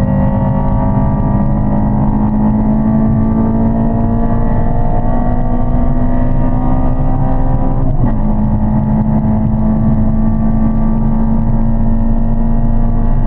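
Honda Civic Type R EP3's four-cylinder VTEC engine pulling hard under full throttle, its pitch climbing steadily for about eight seconds. A quick upshift drops the revs, and the engine climbs again.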